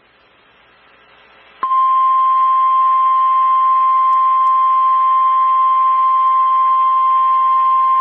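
NOAA Weather Radio warning alarm tone: a single steady, high-pitched tone that comes on sharply about a second and a half in and holds, after a short stretch of faint radio hiss. It is the attention signal that announces a new warning broadcast.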